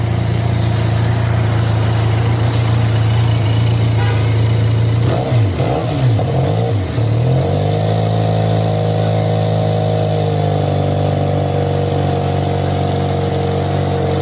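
QJ Motor SRK 400 motorcycle's 400cc parallel-twin engine through its stock exhaust, idling steadily, then blipped quickly a few times about five to seven seconds in. The engine is then held at a steady raised rpm for about six seconds and drops back toward idle near the end.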